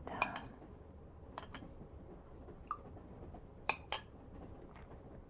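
Light clicks and clinks of tea things, about seven short sharp ones, mostly in quick pairs, over a faint steady background hum.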